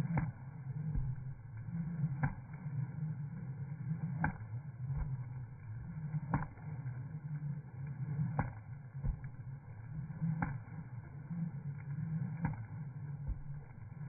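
Skipping rope whirring through the air during steady two-footed jumping, with a sharp click about every two seconds.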